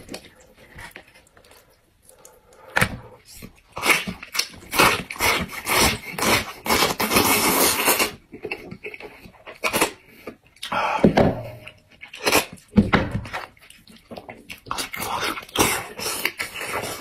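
Close-up eating sounds of a cooked sheep's head: meat and bone pulled apart by hand, with wet tearing, clicks and chewing, in short irregular bursts and a longer noisy stretch in the middle.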